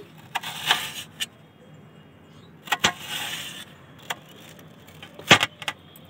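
Kitchen knife cutting a raw potato slice into strips on a steel plate: each cut goes through the potato with a short scrape and ends in a sharp click of the blade on the metal, several clicks spread unevenly over a few seconds.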